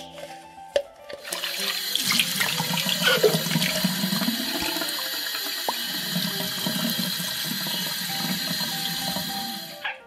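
Water running steadily from a tap into a sink, starting about a second in.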